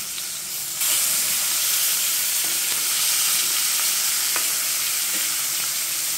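Pork chops sizzling in hot fat in a cast-iron skillet, a steady high hiss that turns louder about a second in as the chops are turned over in the pan.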